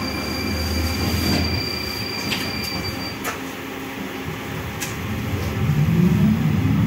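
Tram running along the street, heard from inside the car: a steady low rumble with a thin high whine that stops about three seconds in, a few sharp clicks, and the rumble swelling louder near the end.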